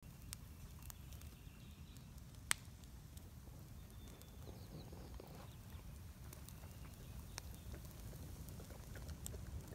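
Wood campfire crackling, with scattered sharp pops, the loudest about two and a half seconds in, over a low steady rumble.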